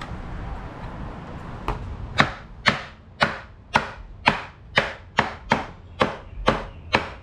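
A wooden mallet knocking on the top rail of a wooden 2x4 sawhorse, about a dozen sharp knocks at roughly two a second, starting about a second and a half in.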